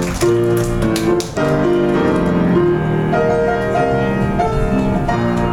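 Instrumental keyboard music, held chords and a melody changing every second or so.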